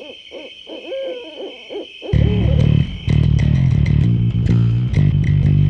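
An owl hooting in a quick series of calls over a steady high tone, cut off about two seconds in by loud rock music with heavy bass guitar and electric guitar.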